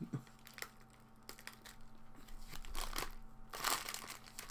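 Plastic snack-cake wrapper crinkling in the hands with scattered faint crackles, and a louder rustle about three and a half seconds in.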